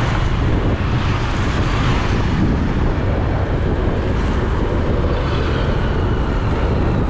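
Steady low rumble of a moving vehicle, road and engine noise with no distinct events.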